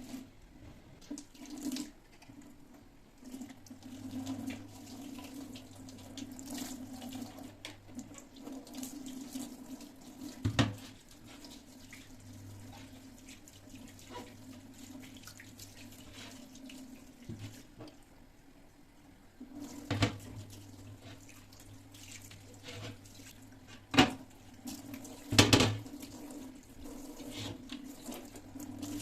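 Water running from a kitchen tap into a sink while things are washed, with a few sharp knocks and clatters of items against the sink or counter.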